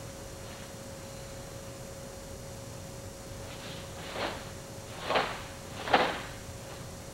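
Three sharp snaps from a kenpo karate practitioner's hand strikes, about a second apart, each louder than the last, over a steady hum.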